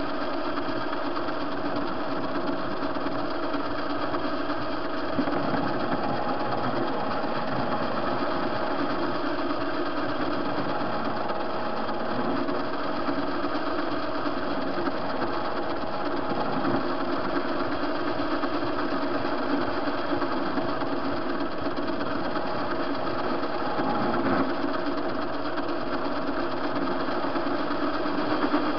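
A TV-16 metal lathe runs steadily with a constant gear whine while its cutting tool takes a turning pass along a rod, reducing its diameter. The sound is even throughout, with a brief slight rise about 24 seconds in.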